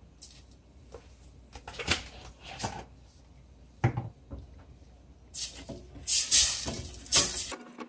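A few light knocks against a stainless steel cooking pot, then a wooden spatula stirring broth in the pot in quick, loud strokes through the second half.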